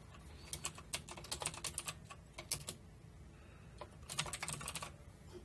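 Typing on a computer keyboard: a quick run of keystrokes for about two seconds, a pause, then another short flurry of keys about four seconds in.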